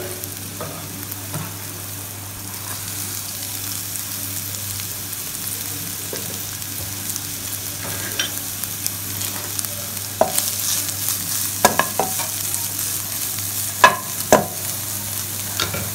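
Chopped onions and shredded boiled chicken sizzling in a hot nonstick pan, a steady hiss that grows brighter about ten seconds in. A wooden spatula stirs through the pan, with several short knocks and scrapes against it near the end.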